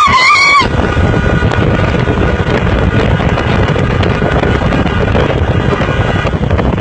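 Car driving fast, with a loud, steady rush of wind buffeting the phone's microphone over engine and road noise. A shout breaks off in the first half second.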